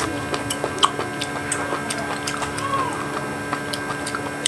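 Close-miked chewing: irregular mouth clicks and smacks with a few sharper ticks, over a steady electrical hum.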